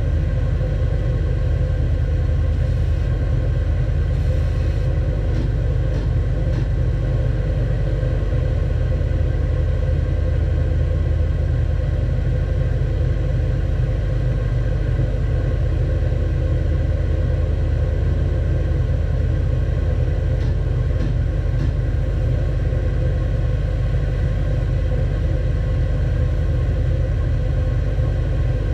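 Edge belt sander running steadily under its own power, a continuous low machine hum and rumble, with a few faint light clicks.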